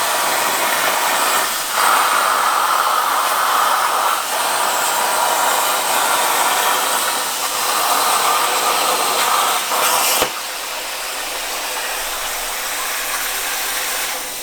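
Hypertherm Powermax65 plasma cutter on a CNC table cutting: the loud, steady hiss of the plasma arc, which cuts off suddenly with a click about ten seconds in, leaving a quieter steady air hiss.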